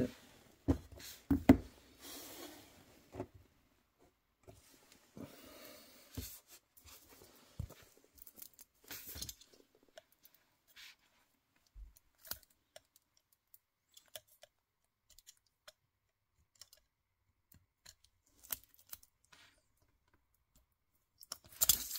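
A knife blade picking and scraping at the edge of the clear protective film on a plastic panel to lift it: scattered sharp clicks and scratches with short bursts of film rustling in the first half, then only occasional faint ticks.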